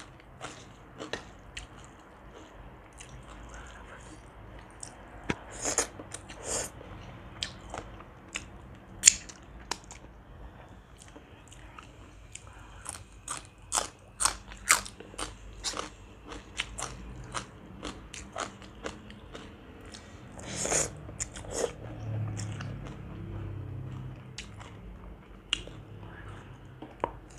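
Close-miked eating sounds: crunchy bites and chewing of papaya salad with raw vegetables such as crisp Thai eggplant, a string of sharp crunches and mouth clicks throughout, densest about halfway through.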